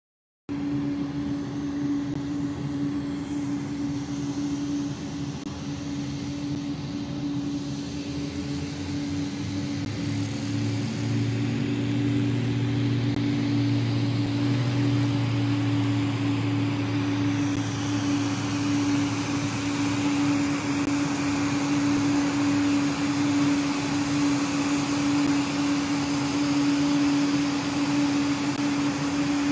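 Propeller-driven light aircraft engine running at high power, a steady drone with one fixed tone and a hiss around it; it starts suddenly and grows a little louder in the second half.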